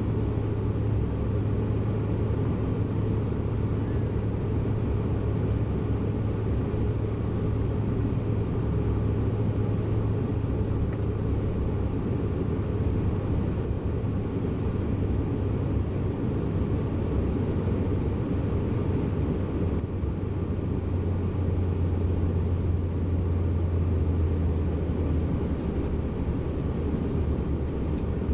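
Steady cabin noise inside a Bombardier CRJ900 jet: the even drone of its engines and rushing air, with a low hum that drops slightly in pitch about ten seconds in.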